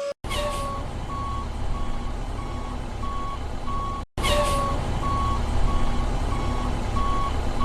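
Truck reversing alarm beeping steadily about every half second over a low engine rumble, with a short falling hiss at the start. The sound breaks off about four seconds in and starts over the same way, like a repeated clip.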